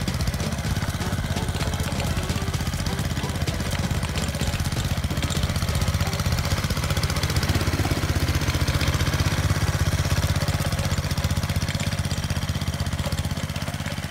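Small petrol garden tiller (motor cultivator) running steadily under load as its rotating tines churn the soil, the engine growing a little louder partway through.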